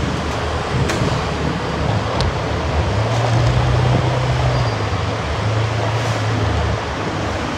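A car driving: steady road and wind noise over a low engine hum that rises and falls in pitch a few times.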